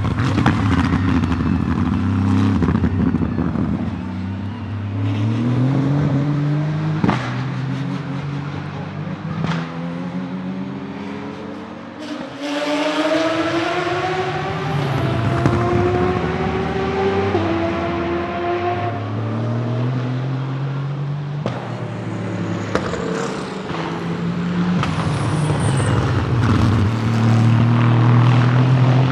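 Aston Martin Vantage GT3 race cars' Mercedes-AMG-derived 4.0-litre twin-turbocharged V8s accelerating hard and passing by, several times over. The engine note climbs through each gear and drops back at each upshift.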